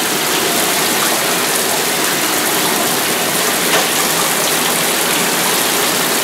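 Handheld shower sprayer running, water hissing steadily onto a wet miniature schnauzer and splashing in the bathtub as the soap is rinsed out of its coat.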